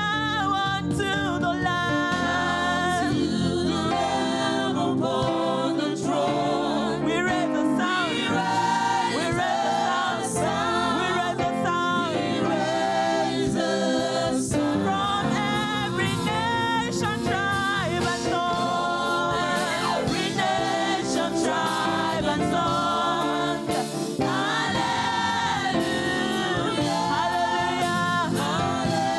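Church choir singing gospel praise with instrumental backing.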